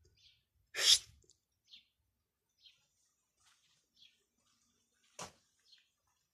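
A single sharp sneeze about a second in, the loudest sound here, with a shorter, fainter burst near the end and faint high chirps scattered between.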